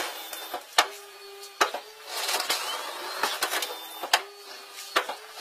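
Aluminium boat's bow ramp mechanism working: a motor whines in two short stretches, with sharp knocks and clicks of metal on metal in between.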